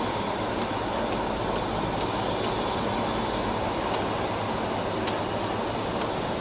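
Steady jet noise from a Boeing 777-300ER, a constant rush with a faint steady whine that neither rises nor falls.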